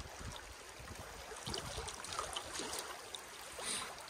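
River water lapping and trickling along the hull of a Pakcanoe folding canoe as it drifts downstream, with small drips and light splashes throughout and a brief hiss of water about three and a half seconds in.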